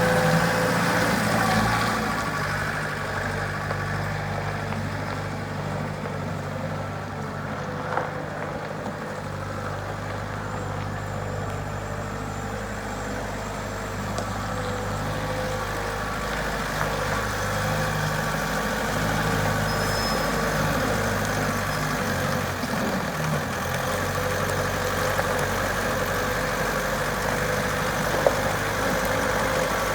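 Volvo L30B wheel loader's diesel engine running steadily at an even speed.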